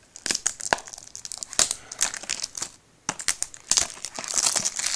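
Cellophane shrink-wrap on a Blu-ray case crinkling and tearing as it is handled and pulled off, a run of sharp crackles with a short lull a little past halfway and thicker crinkling near the end.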